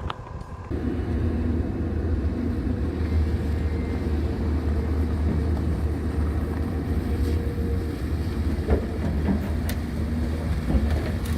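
A vehicle's engine picks up about a second in and runs steadily under load as the vehicle drives off, with a low drone and a few light knocks near the end.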